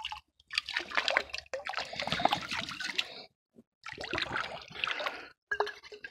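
Water splashing and sloshing as a hand works in shallow creek water and rinses a glass bottle, in several bursts of about a second with short pauses between.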